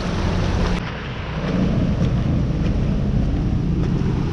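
Mountain bike wheels pushing through floodwater: a steady rush of splashing, churning water, mixed with wind buffeting the microphone.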